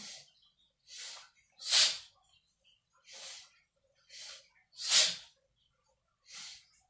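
A man's breathing in a qigong breathing drill: two short inhales followed by one sharp, loud exhale, the pattern done twice, with a third round starting near the end.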